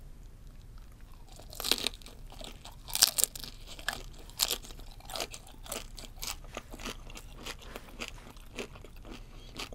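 Biting and chewing the hard shell of a deep-fried Japanese spiny lobster (chicken shrimp): a few loud crunches starting about a second and a half in, then a steady run of smaller crackles as it is chewed.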